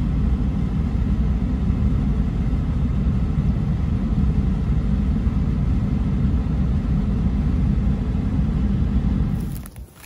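Steady low vehicle rumble heard from inside a pickup truck's cab. It cuts off suddenly near the end.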